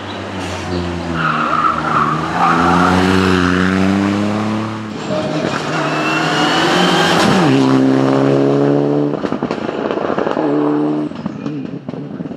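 Rally cars driven flat out one after another, engines revving hard as they climb through the gears. A Mitsubishi Lancer Evolution's turbocharged four-cylinder rises in pitch, drops sharply at a gear change about halfway in, and revs up again as it pulls away.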